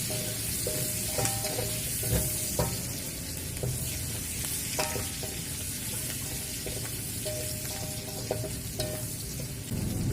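Stir-fry sizzling in a hot pan, with scattered clicks of a spatula against the pan as the food is stirred. A low rumble comes in at the very end.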